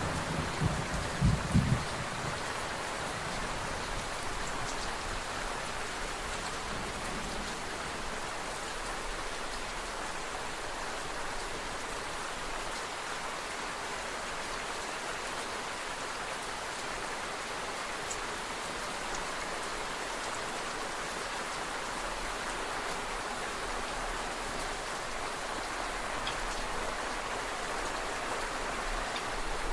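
Steady rain falling, an even hiss of many drops. In the first two seconds a low rumble of thunder dies away.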